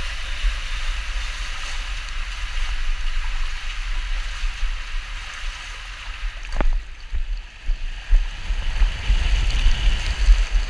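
Water rushing and a racing mat sliding down an enclosed waterslide tube, a steady hiss over a low rumble, with one sharp knock about two-thirds of the way through. The rumble grows rougher and louder near the end as the mat shoots out into the open, splashing run-out lane.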